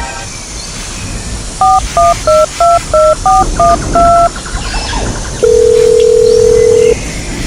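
Telephone keypad tones: about eight quick two-note beeps as a number is dialled, then a steady ringing tone that sounds for about a second and a half and stops, a call ringing out.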